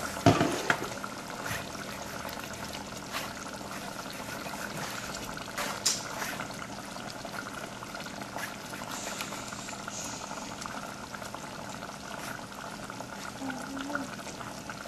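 Steel ladle pressing and scraping boiled tuvar dal through a plastic strainer, with the strained dal dripping and pouring into a pot of simmering vegetables. A few light knocks of the ladle against the strainer, the sharpest just after the start and another about six seconds in.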